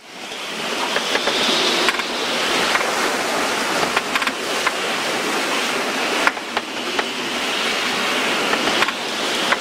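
Gale-force wind and breaking seas around a small sailing boat: a loud, rushing hiss of wind and water that swells and eases several times, with scattered sharp knocks.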